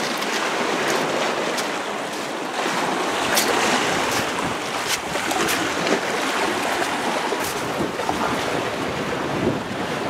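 Small waves washing in over rocks and stones along the shore, with wind buffeting the microphone: a steady rushing noise.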